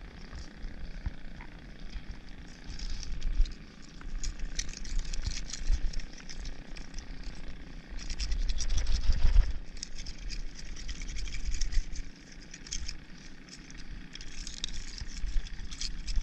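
Clump of farmed oysters grown on a rope being handled and pulled apart by gloved hands: shells scraping, crackling and clicking irregularly, over a low rumble that swells about eight seconds in.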